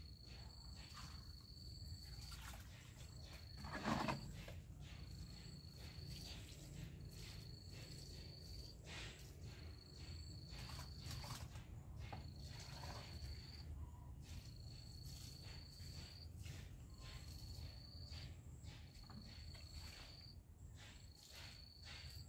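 An insect trilling on one steady high note in repeated stretches of about a second, with short breaks between, over a low background rumble. A brief louder thud about four seconds in.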